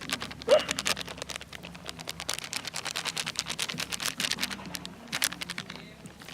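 Rapid, irregular clicking and crackling from rice flour being added to marinated chicken pieces by hand. A short animal yelp sounds once about half a second in.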